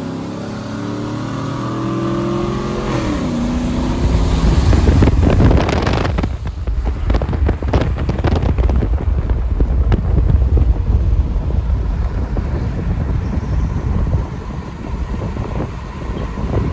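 GM V8 pickup truck accelerating hard in a roll race, heard from inside the cab. The engine note climbs steadily, then drops with an upshift about three seconds in. From about four seconds on, a loud rush of wind and road noise carries the engine's drone.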